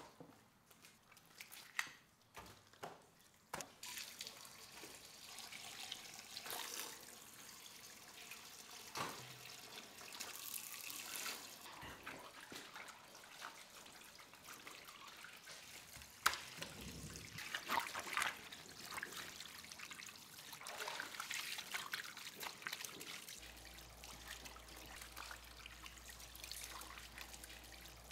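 Tap water running and splashing over gutted trout as gloved hands rinse them in a steel sink, with a few sharp knocks in the first few seconds.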